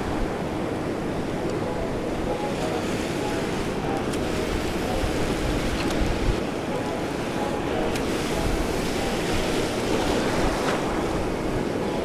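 Shallow surf washing and foaming close around, a steady rush of water with wind blowing on the microphone.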